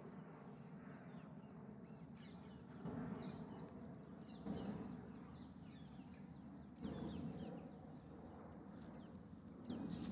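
Faint outdoor birdsong: many short high chirps over a steady low background noise, with a few louder swells every two to three seconds.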